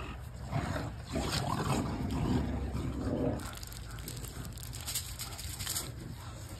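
Aluminium foil being folded and crimped shut into a cooking packet, crinkling crisply in the second half. Before that there is a duller, low rustling.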